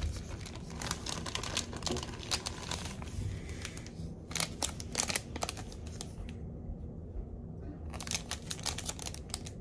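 Thin plastic bag and the clear plastic wrapper of a toothbrush set crinkling as hands handle them, in three bouts with a quieter lull after the middle, over a steady low hum.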